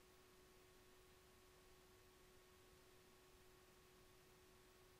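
Near silence: a faint steady hiss with a thin steady hum.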